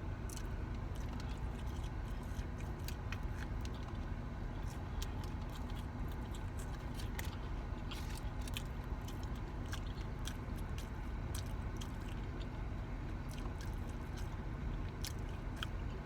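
Close-miked mouth sounds of someone biting and chewing food, with scattered small wet clicks and crunches over a steady low hum.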